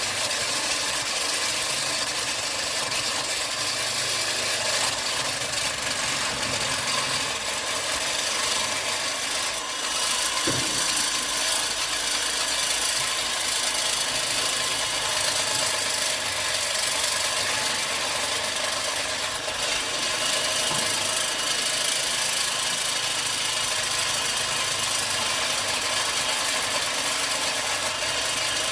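Steady machine running noise with light rattles, and a single knock about ten seconds in.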